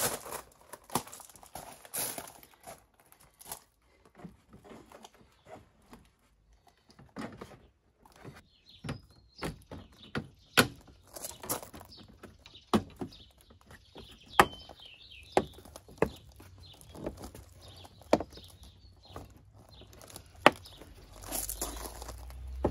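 Plastic bumper-cover clips on a MINI F56 snapping into place as the front bumper is pressed back onto the car, single sharp clicks every second or so. Footsteps crunch on gravel at the start, and birds chirp faintly.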